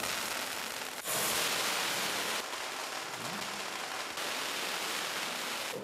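Small pyrotechnic fountain hissing steadily as it sprays sparks, louder from about a second in.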